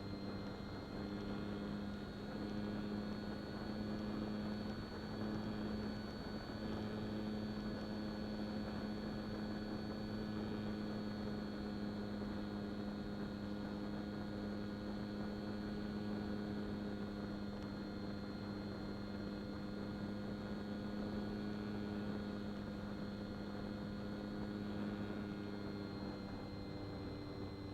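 Onboard sound of a Durafly Excalibur model plane's brushless electric motor and propeller running steadily at cruise: an even hum with a thin high whine above it, under a haze of airflow noise.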